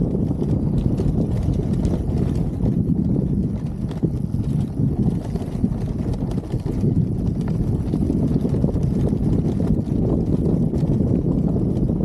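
Steady low rumble with wind buffeting the microphone while an enduro motorcycle rides over a rough grassy track.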